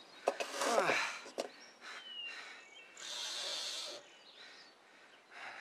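A short falling-pitched vocal cry, then a few sharp clicks, then about a second of scratchy hiss about three seconds in as a Tipp-Ex correction-tape mouse is run across printed words to white them out.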